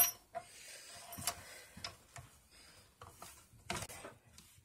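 The white plastic retaining ring of a KitchenAid food grinder attachment is screwed down by hand over the die, giving irregular light clicks and the rubbing of plastic threads. A sharper click comes right at the start, and a stronger cluster of clicks a little before four seconds in.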